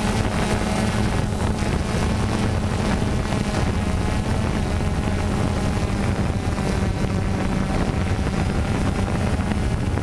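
DJI Phantom 2 quadcopter's motors and propellers humming steadily in flight, heard through the GoPro Hero3 mounted on it, with wind rushing across the microphone.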